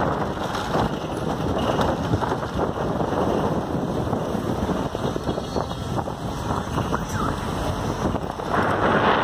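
Wind buffeting the microphone of a moving vehicle, mixed with road rumble: a steady rushing that gets louder and brighter near the end.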